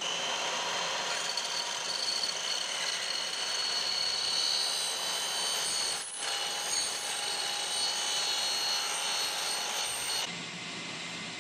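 Makita sliding miter saw with an 8-inch metal-cutting blade cutting through aluminum extrusion, the blade under load with steady high ringing tones over the motor. It dips briefly about halfway through. Near the end the blade comes out of the cut and the saw keeps running free at a lower level.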